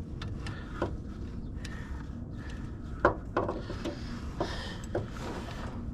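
A handful of short metallic clicks and knocks from a long breaker bar and socket being fitted and worked on a hub bolt, over a low steady background rumble.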